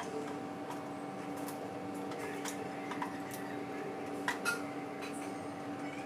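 Steady low hum with scattered light clicks and taps, and two sharper clicks just past four seconds in.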